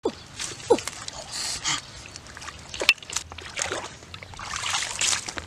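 Splashing and rustling of water hyacinth and mud being handled in shallow water, with a few sharp snaps. Near the start come two short falling squeaks, the second of them the loudest sound.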